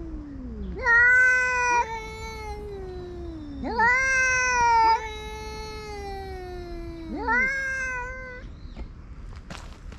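Grey-tabby-and-white cat yowling three times, each a long drawn-out call that starts high and slides down in pitch. It is a territorial warning at a rival cat.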